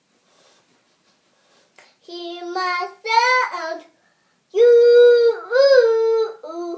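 A young girl singing a rhythmic, made-up chant. After about two seconds of quiet come two short sung phrases, then a longer one with a held note.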